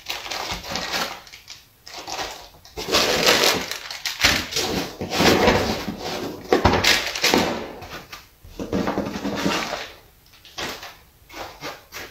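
Plastic packaging crinkling and rustling in bursts as bagged parts are handled and lifted out of the foam inserts, with a sharp knock just past halfway.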